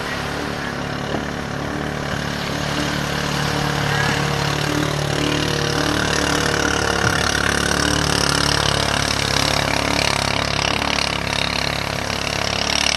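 Engine of a bancarera outrigger racing boat running at speed offshore, a steady note that grows louder about three seconds in.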